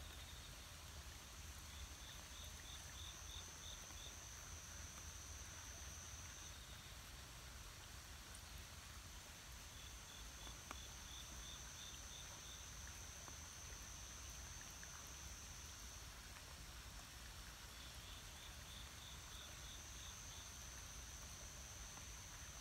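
Faint insect chorus: one insect buzzes steadily at a high pitch for several seconds at a time, breaking off twice, and a short run of quick high chirps recurs three times, over a low rumble.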